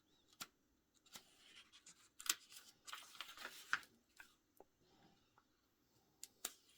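Pages of a paper owner's manual being flipped and handled: faint rustles and light ticks, with a short busier run of page flicks about two to four seconds in.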